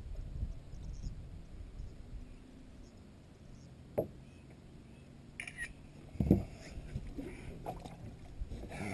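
Wind and water noise on a bass boat drifting on choppy water, with a sharp knock about four seconds in and a heavier thump on the boat a couple of seconds later.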